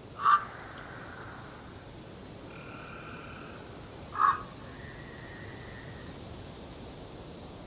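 Two short, loud animal calls about four seconds apart, with faint thin whistled notes between them, over a steady background hiss.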